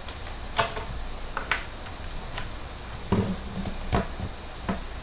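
Handling noise from a gaming headset and its cables being plugged in: scattered light clicks and knocks, with a duller bump about three seconds in, over a steady low background hum.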